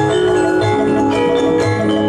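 Music of struck, ringing metallic notes in a steady pattern over held low notes.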